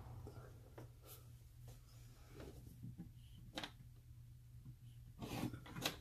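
Small handling noises of fingers working thin wires and a small plastic JST connector, scattered soft rubs and ticks. About five seconds in comes a louder rub, followed by a sharp click near the end, over a steady low hum.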